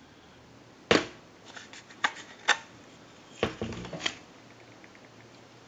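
Clicks and light knocks from handling the receiver parts of an Automatic Electric Model 21 telephone handset as it is taken apart: a sharp knock about a second in, a few smaller clicks around two seconds, and another cluster of clicks between three and a half and four seconds.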